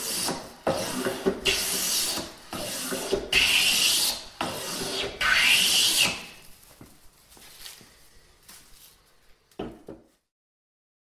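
Metal hand plane cutting shavings off the edge of a wooden board: about seven quick back-to-back strokes, each a rasping hiss of the iron slicing wood. After that come quieter scraping and light clicks, then a short knock just before the sound stops.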